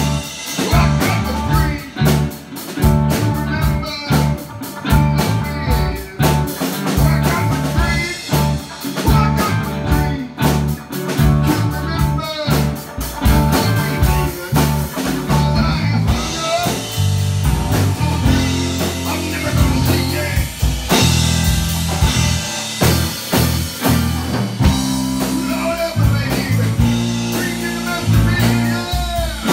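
Live blues-rock band playing: a drum kit keeps a steady beat under electric guitars, with a harmonica played into a cupped handheld microphone carrying a bending lead line.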